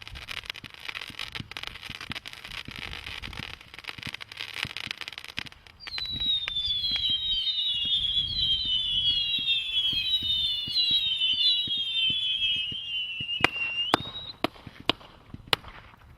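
500-shot firework cake firing: dense crackling at first, then from about six seconds in a volley of overlapping whistles, each falling in pitch, and near the end a few sharp single bangs.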